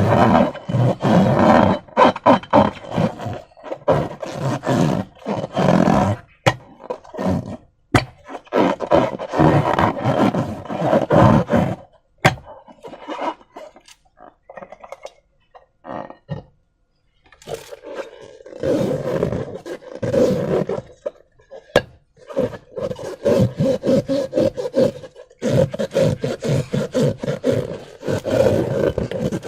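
Hands working latex balloons and slime, in irregular bursts of handling noise with a quieter few seconds midway.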